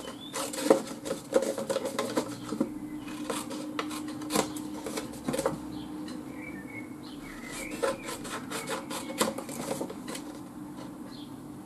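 Scissors snipping through designer paper, cutting off corners: runs of quick sharp snips with short pauses between them, and the paper rustling as it is turned.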